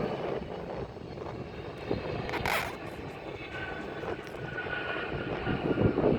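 Jet airliner engine noise, a steady low rumble of a plane taking off or landing, with a brief hiss about two and a half seconds in.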